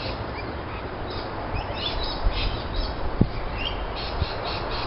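Small birds chirping: short, high chirps in quick clusters, more of them from about two seconds in, over a steady outdoor background hiss. A single light tap sounds about three seconds in.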